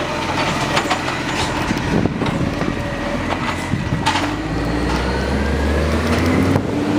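Side-loader garbage truck running, with clattering knocks as its automated arm lifts and tips a wheelie bin. In the second half a vehicle's engine note rises slightly in pitch as it passes close by.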